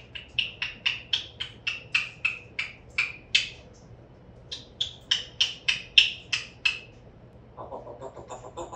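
African grey parrot making a quick series of short, sharp clicking sounds, four or five a second, in two runs with a pause of about a second between them. Near the end comes a lower, faster chatter.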